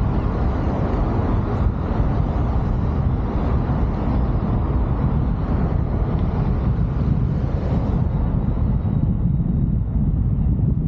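Steady low rumble of wind and road noise from a car driving along a city street, with wind buffeting the microphone. The higher hiss thins out about eight seconds in.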